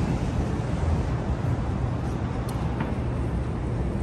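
City street background noise: a steady low rumble of road traffic.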